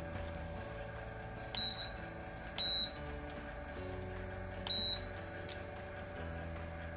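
Handheld infrared thermometer gun beeping three times, short high beeps as it takes temperature readings of a DTF transfer on the curing belt. Under the beeps runs the steady hum of the infrared curing tunnel.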